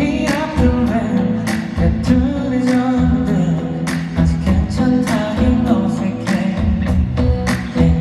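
Live pop song performance: singing over instrumental accompaniment, with a steady drum beat of about two hits a second and a full bass line.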